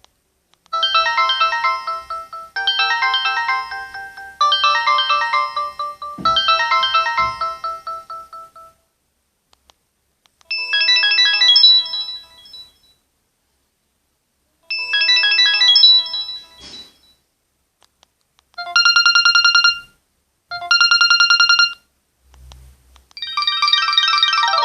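Samsung GT-E1205T stock ringtones played one after another through the small speaker of a Samsung GT-E2250 phone. First a short electronic melody repeats four times. After a pause come two separate melodic phrases, then two bursts of a fast-trilled ring tone. Another ringtone starts near the end.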